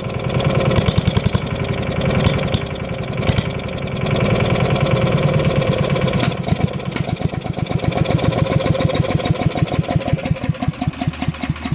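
Wood chipper engine running on compressed biogas fed straight into the carburettor, with an uneven, fluctuating firing beat that slows and grows more widely spaced near the end.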